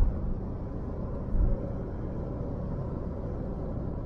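Steady road and tyre noise with engine rumble, heard inside a moving car's cabin, with a brief low thump about a second and a half in.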